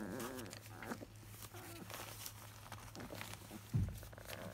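Three-week-old Labrador puppies grumbling: short discontented growly whines that waver in pitch, the longest at the start and a few brief ones later, over small rustles and clicks as they shift about. A single dull thump about four seconds in is the loudest sound.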